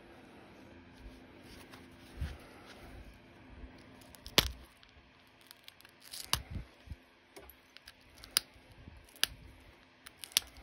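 Pressure flaking opalite with a copper-tipped pressure flaker: several sharp clicks as flakes snap off the arrowhead preform, the loudest a little before halfway.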